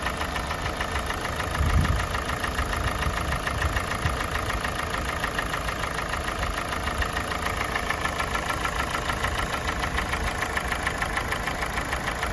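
Kia Sportage G4NA 2.0-litre four-cylinder petrol engine idling during warm-up, with a steady, fast, ringing knock. The owner says it is not a piston knock and suspects the cam phasers or the valves. There is a low thud about two seconds in.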